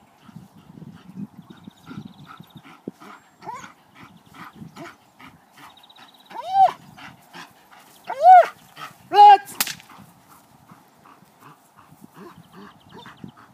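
German Shepherd dog giving three short, high yelping whines that rise and fall in pitch, one about halfway through and two more close together a couple of seconds later.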